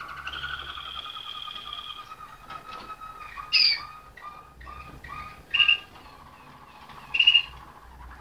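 Malinois (Waterslager) song canary singing. A long rolling trill gives way to a run of short repeated notes, about two a second, and is broken by three loud sharp chirps.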